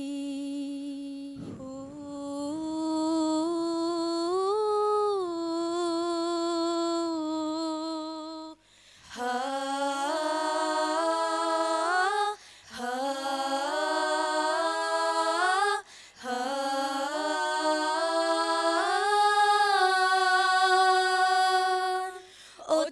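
Female a cappella nasyid group humming wordless long-held notes. A single melody line at first, then from about a third of the way in several voices move together in close harmony, with a few short breaks between phrases.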